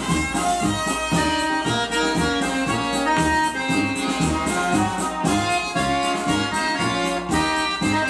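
Instrumental Brazilian junina music led by accordion, with a band keeping a steady beat, played from a vinyl LP on a turntable.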